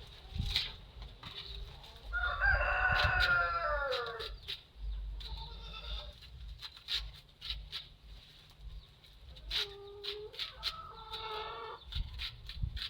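A rooster crowing: one long call with falling pitch about two seconds in, and another call near ten seconds, with scattered sharp clicks and knocks throughout.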